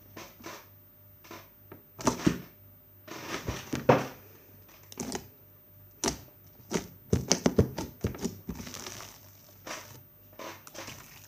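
Bead-filled slime being squeezed and worked by hand: irregular crackling, clicking and squelching pops, with louder clusters about two seconds in, around four seconds, and between six and eight seconds.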